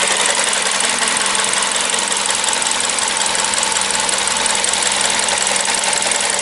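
Toyota Corolla VVT-i four-cylinder engine idling, heard close up in the open engine bay, with a fast, even ticking over a steady hum. The idle holds steady here.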